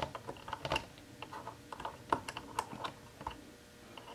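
Light, irregular plastic clicks and taps from a Playmobil toy car's wheel being worked off its axle with a small plastic wheel tool. The clicks thin out near the end.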